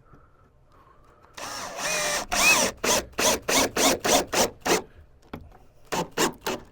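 Power drill/driver driving a screw into wood: one longer run with the motor pitch rising and falling, then a rapid series of short trigger bursts at about four a second to seat it, and three more short bursts near the end.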